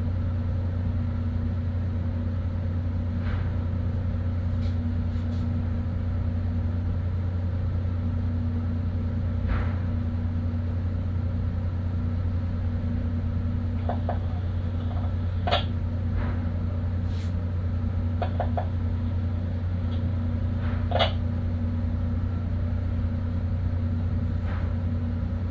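Shipboard machinery running with a steady low hum while fish pumping resumes, broken by a few short knocks and clanks.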